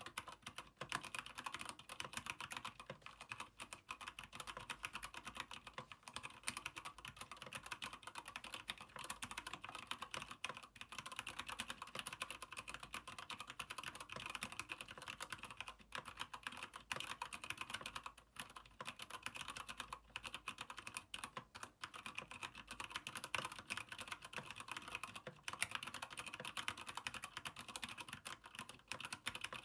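Continuous fast typing on a Keychron K8 mechanical keyboard with Gateron Brown switches in an aluminium frame: a dense, even stream of key clacks.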